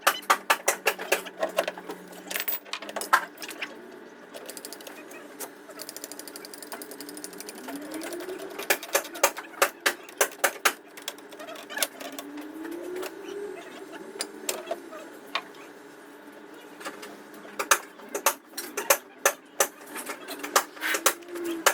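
Quick runs of sharp hammer strikes, about five a second, with short pauses between runs: typical of panel-beating crash damage out of a car's sheet-metal body.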